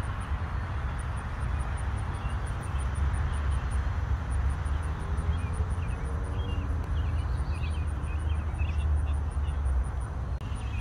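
Outdoor summer ambience: a steady low rumble, with an insect's fast, high-pitched pulsing throughout and a run of short bird chirps in the middle.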